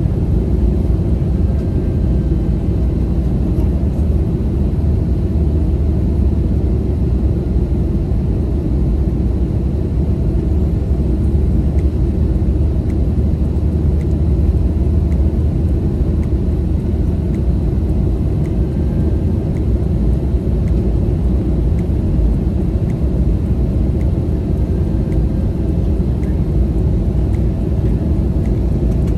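Steady low cabin rumble of an Airbus A321neo airliner, engine and airframe noise heard from inside the cabin, holding even throughout.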